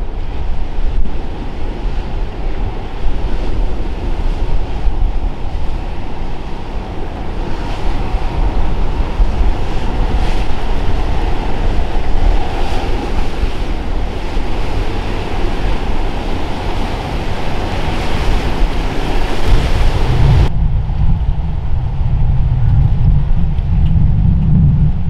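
Waves and boat wake splashing, with heavy wind buffeting the microphone and a motor yacht's engines running underneath. About twenty seconds in, the sound switches abruptly to a deeper, steady low rumble with the splashing gone.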